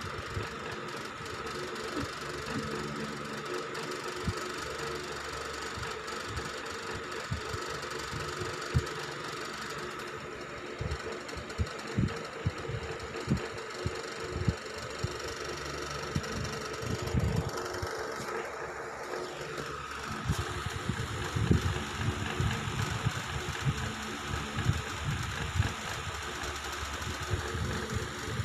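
Steady mechanical hum with irregular low knocks and thumps, more frequent in the second half.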